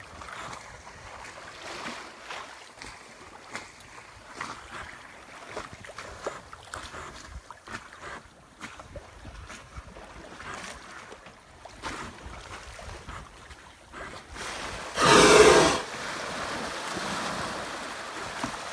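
Water slopping against a small yacht's hull, with wind on the microphone. About fifteen seconds in comes one loud, short, breathy whoosh with a slight hollow ring: a humpback whale blowing as it surfaces close to the boat.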